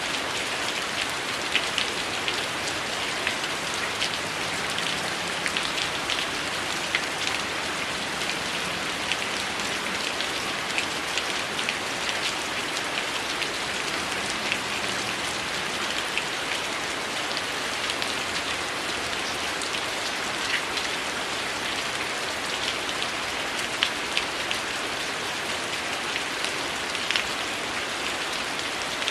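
Heavy rain falling steadily, with scattered short crackles of a wood fire.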